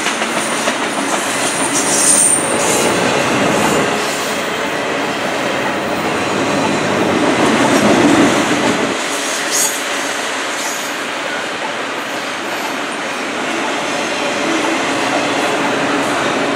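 CN double-stack intermodal freight train rolling past, its wheels running steadily on the rails. A brief high wheel squeal comes about two seconds in, and a couple of sharp clicks from the wheels about halfway through.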